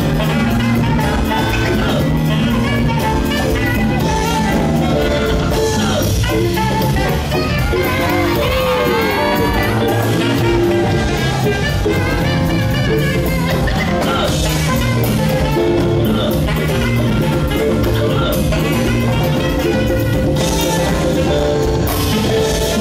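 Live band playing a loud, continuous Latin-tinged dance groove on electric guitars, drum kit and congas.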